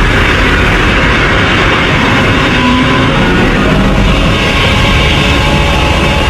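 Loud, dense music with a heavy-metal rock character, holding a steady level.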